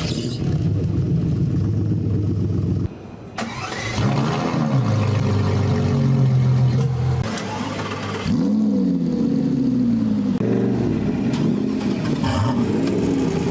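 A run of different high-performance car engines, one short clip after another: engines starting, then revving up and falling back, with the pitch rising and falling several times. There are sudden changes in the engine sound about 3 s in, again around 8 s and around 10 s.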